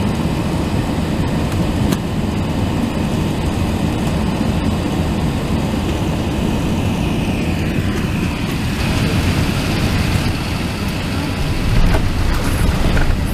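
Cabin noise of an Airbus A380 on final approach: a steady, low engine-and-airflow rumble. A falling whine comes a little past the middle, then a steady higher whine, and the sound grows louder near the end.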